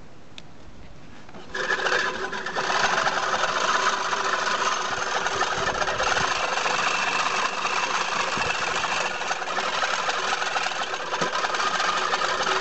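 Wolf Garten TT 350 S hand-push cylinder mower cutting grass: its spinning reel gives a steady whirring rattle, starting about a second and a half in as the mower is pushed off.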